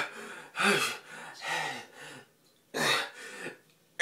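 A man coughing and clearing his throat in several short, separate bursts.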